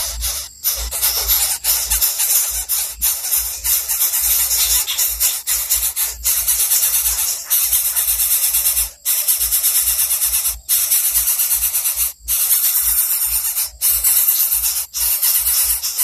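Background music with a dense hissy high end and a pulsing bass, cutting out briefly several times.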